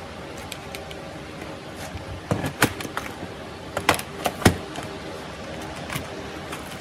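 Hard plastic parts of a Sony Vaio laptop's case clicking and knocking as they are handled and lifted apart during disassembly, with a cluster of sharp clacks in the middle.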